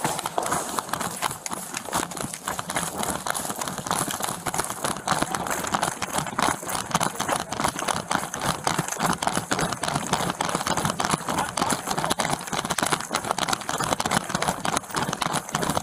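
A running police officer's footfalls on pavement, a quick steady rhythm of thumps with his duty gear rattling and his uniform rubbing on the chest-mounted body camera's microphone.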